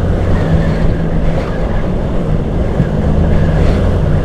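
Yamaha Grand Filano scooter's engine running at a steady pace on the move, with heavy wind buffeting the microphone.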